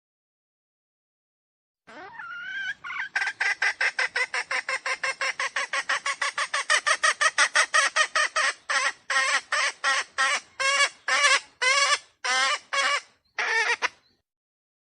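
Red junglefowl calling: starting about two seconds in, a rapid run of short, sharp notes at about five a second, slowing to about two a second in the second half and then stopping.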